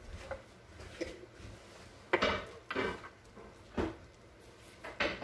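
Cookware and utensils being handled in a kitchen: a handful of short clatters and knocks, the loudest about two seconds in, with others near three, four and five seconds.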